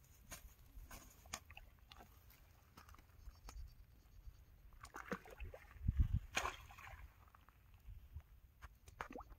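Shallow water sloshing and splashing as a person wades in and lowers a nylon mesh fish net into it, with scattered light rustles and clicks. The loudest splash, with a low thud, comes about six seconds in.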